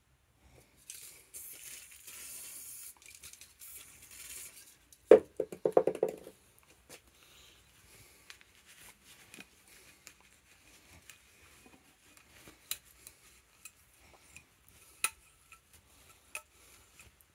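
Fork parts being cleaned with a rag on a workbench. A few seconds of steady hiss come first, then a short loud squeaky rub of cloth on metal about five seconds in, followed by scattered light clicks and knocks.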